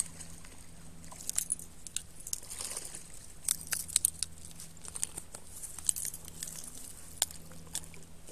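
Hooked black bass splashing at the surface as it is played in and scooped into a landing net, with scattered sharp clicks and crackles from the tackle and net being handled.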